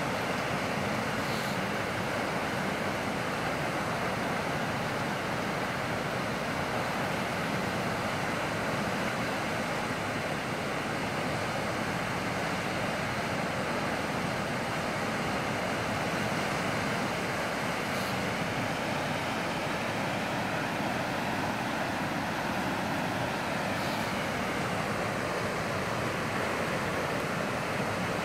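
Steady rush of muddy floodwater in a creek running in flood.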